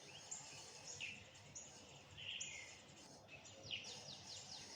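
Faint birdsong: scattered short high chirps, with a quick run of short falling notes about three-quarters of the way through, over a faint steady hiss.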